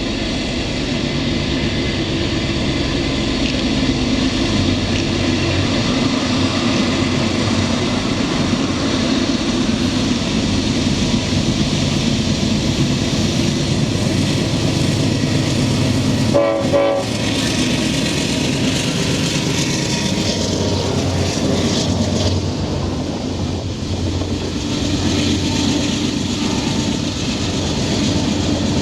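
Norfolk Southern freight train passing close by: diesel locomotives running loud and steady, with rail-car wheels rumbling and clacking over the track. A brief tonal blip sounds just past halfway.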